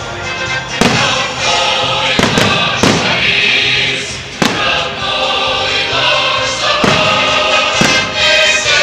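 Fireworks salute going off: a series of sharp firework bangs, one every second or two, over loud choral music.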